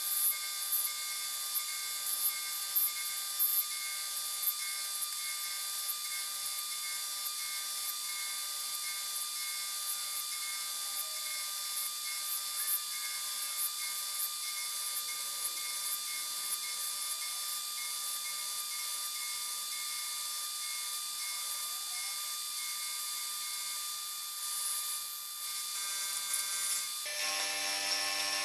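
Manual milling machine's end mill cutting metal, a steady whine of several tones with a hiss above it and a few sharper spikes in the first seconds. Near the end the whine changes pitch as the cut moves on.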